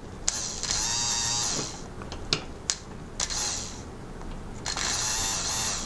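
Electric fuel pump motor run dry off a small battery: a high whine that spins up and winds down, three times, first for over a second, then briefly about three seconds in, then again near the end. A few sharp clicks fall between the runs.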